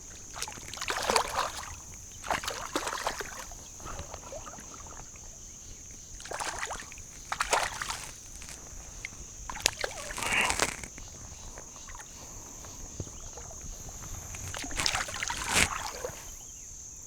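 Water splashing and sloshing in about six short, irregular bursts, the sound of a hooked trout thrashing or a wader moving through the shallows, over a steady high-pitched hum.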